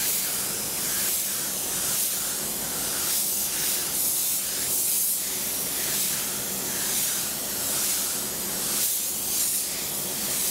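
Gravity-feed paint spray gun with a 1.6 mm setup at about 1 bar hissing steadily as it atomises 2K filler onto a car panel in wet-on-wet coats. The hiss swells and eases about once a second with each pass of the gun.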